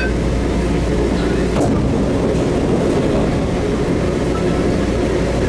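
INNOVIA APM 256 rubber-tyred automated metro train coming to a stop at a station, heard from inside the front of the train. A short falling tone and a click come about one and a half seconds in as it halts, and the deep running rumble drops away, leaving steady station and cabin noise.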